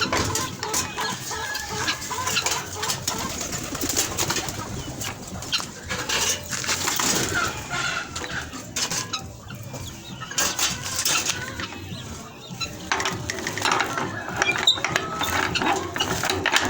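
Farm poultry calling, with many short sharp clicks and rustles mixed in.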